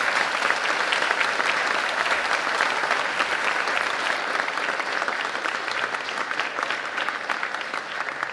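A large audience applauding: dense, steady clapping that eases slightly near the end.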